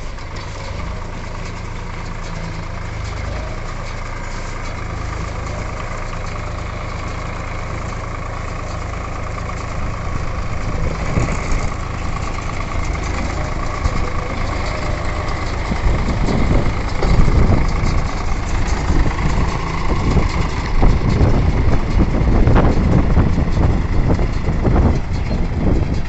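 Swaraj 963 FE tractor's diesel engine running steadily at first, then from about ten seconds in getting louder and rougher, with irregular thumping and rushing noise that builds through the second half.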